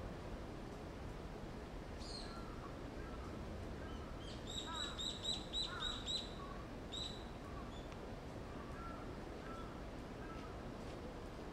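Birds calling: a quick run of about seven short, high, evenly spaced notes a little before the middle, one more a second later, and softer scattered calls around them over a steady low background noise.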